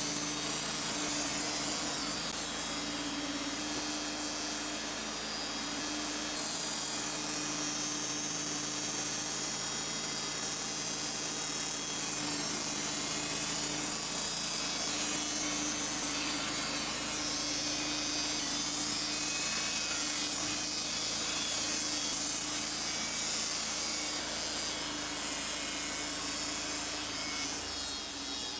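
Wood-Mizer LT35 portable band sawmill cutting a cedar log into fence boards: the band blade saws steadily through the wood over the steady hum of the mill running under load, easing off near the end.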